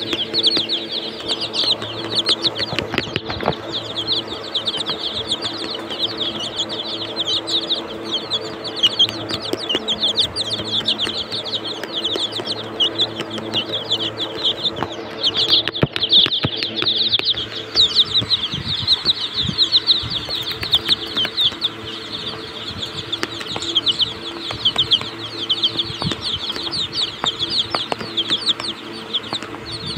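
A brood of Sonali chicks peeping constantly, many high chirps overlapping into one shrill chorus, over a steady low hum with occasional sharp clicks.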